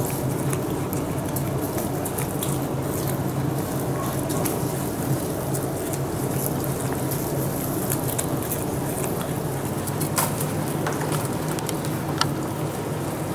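Steady low hum of an indoor red panda enclosure, with scattered small clicks and rustles as red pandas scuffle on wood chips and handle bamboo.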